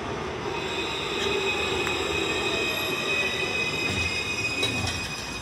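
C-class (Alstom Citadis) tram's wheels squealing as it rounds the curve, a steady high-pitched squeal at several pitches at once over the rumble of the moving tram, starting about half a second in.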